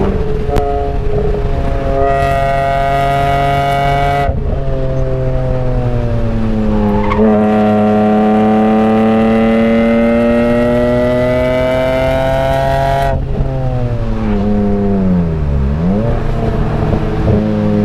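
BMW E46 M3's S54 inline-six engine heard from inside the cabin while driven hard on track: revs fall off the throttle, then climb steadily for about five seconds, drop away sharply, and dip and rise again quickly near the end.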